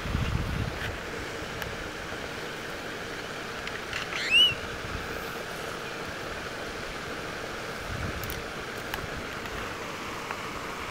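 Steady outdoor wind noise by a pond, with a low rumble at the start and one short, high squeak that rises in pitch about four seconds in.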